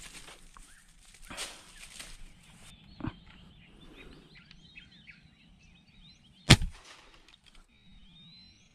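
A single sharp air rifle shot about two-thirds of the way in, with birds chirping in the background; a smaller knock comes about three seconds in.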